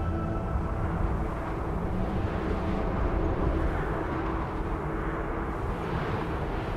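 Steady low outdoor rumble with a hiss above it, after held musical tones fade out about a second in.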